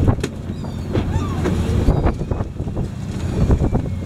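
Fishing boat's engine running with a steady low hum, with scattered knocks and clatter on the deck and wind on the microphone.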